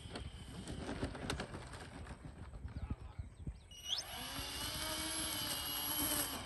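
Wheels of an RC E-2C Hawkeye model rattling and clicking over the runway during the landing rollout. About four seconds in, the model's electric motors come back in with a sharp rising whine that then holds steady.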